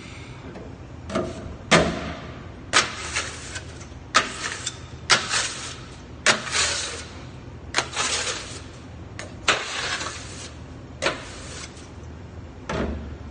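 Baker working at a deck oven: about a dozen sharp swishing strokes, roughly one a second, each starting with a click and trailing off in a short hiss, over a steady low hum.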